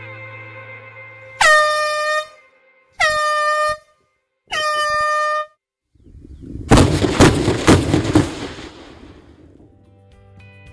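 A blasting warning horn sounds three times, each blast under a second long. Then the quarry blast goes off: a rapid string of sharp cracks from light explosive charges in drill holes along the stone bench, followed by a fading rumble.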